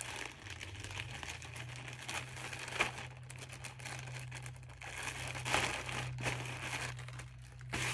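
Plastic packaging crinkling and rustling as items are handled and unwrapped, with a sharp crackle about three seconds in and louder rustling around five to six seconds.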